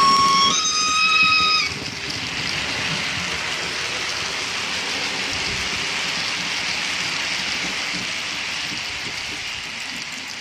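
Model steam locomotive's whistle, a held tone that steps up in pitch and stops a little under two seconds in, followed by a steady hiss of the model train running past that fades near the end.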